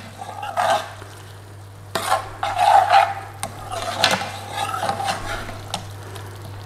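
A metal spoon stirring and scraping a thick curry sauce in a metal frying pan in irregular strokes, with a light sizzle from the pan and a steady low hum underneath.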